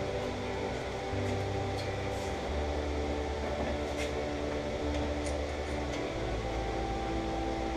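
Background music with held bass notes that change every second or two, with a few faint clicks.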